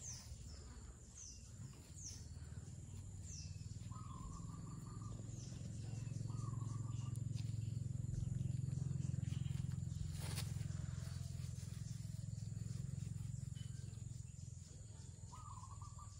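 Garden ambience: birds calling, with a run of short falling chirps in the first few seconds and a few short wavering calls later, over a thin steady high tone and a low rumble that swells through the middle and fades. A single sharp click about ten seconds in.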